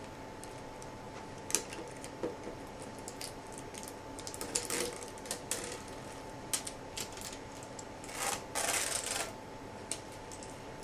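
Hard plastic e-reader packaging being handled and opened: scattered clicks and taps, with a short rustle around eight to nine seconds in.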